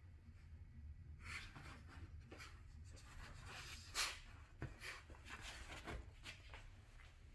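Faint scratching and scuffing as a puppy paws and rubs against a leather couch: a string of short scrapes, the sharpest about four seconds in.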